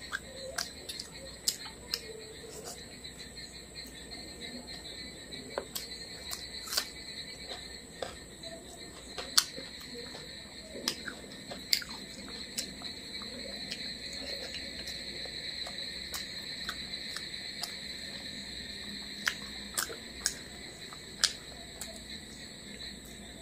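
Close-miked eating with the hands: sharp mouth clicks and lip smacks, with soft squelches of rice being mixed with fried fish, over a steady high-pitched whine.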